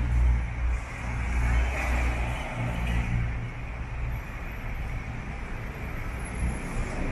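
City road traffic: a steady low rumble of car engines and tyres, louder for the first three and a half seconds and then easing off.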